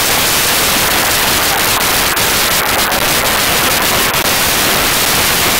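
Loud, steady static hiss filling the recording, with a few faint ticks, drowning out any music or voices.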